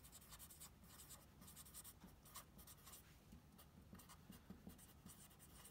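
Felt-tip marker writing on a white board: a faint run of short strokes and scratches.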